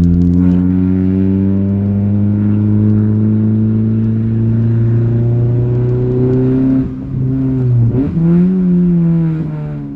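Astra's loud exhaust note with the car in a low gear: the engine pitch jumps up at the start, then sinks slowly as the revs drop. Around eight seconds it dips and jumps up again, then falls away near the end.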